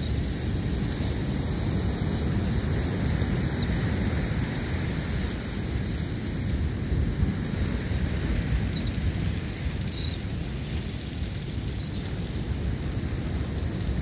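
Wind buffeting the microphone over a steady rush of surf.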